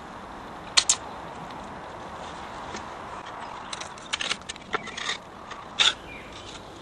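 A knife cutting and scraping through sandpaper-like grip tape along the edge of a skateboard deck. The strokes are short and sharp: two about a second in, a cluster at about four to five seconds, and a louder one near six seconds, over a steady hiss.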